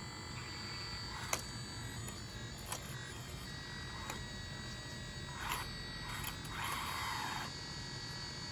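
Small electric drive motors and servos of a radio-controlled Bobcat skid steer whining steadily as it works, with a few sharp clicks and two short scraping noises in the second half.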